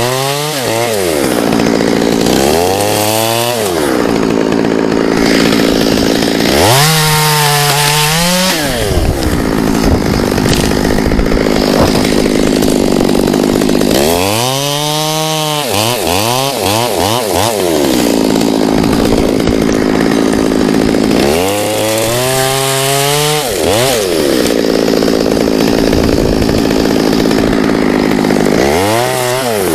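Two-stroke chainsaw cutting wood, held at high revs through each cut. About every five to seven seconds it drops back to idle and revs up again.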